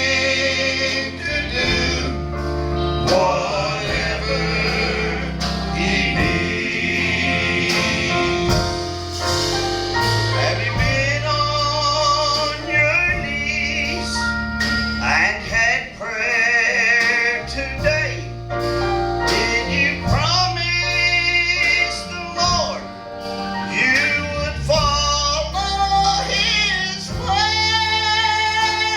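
Gospel quartet singing with instrumental backing: long held notes with vibrato over sustained bass notes.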